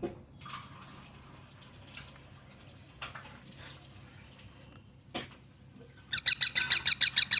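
Young parrots giving a fast run of about ten shrill, squeaky calls over a second and a half, starting near the end, after a few faint knocks.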